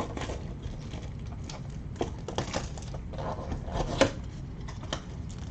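Cardboard blaster box of trading cards being opened and its foil packs and oversized card handled: a string of small clicks, taps and crinkles, with a few sharper ones about two and four seconds in.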